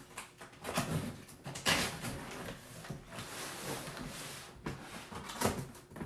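Cardboard shipping box being opened by hand: packing tape peeled and torn off the top, with several short rips and a longer stretch of tearing through the middle, along with rustling and scraping of the cardboard flaps.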